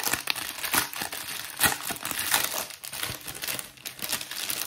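Small plastic bags of diamond-painting drills crinkling as they are handled and opened: irregular crinkles with sharp crackles throughout.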